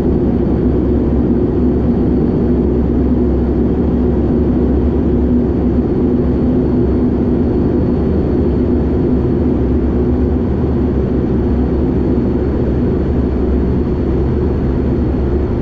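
Steady drone of a Dash 8 Q400's Pratt & Whitney PW150A turboprop engine and six-bladed propeller at low taxi power, heard from inside the cabin, with a faint high whine above it.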